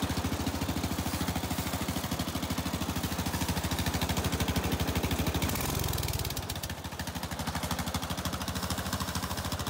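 Riding lawn mower's small single-cylinder-style engine running steadily at idle, an even rapid pulsing, with a brief deeper rumble about halfway through.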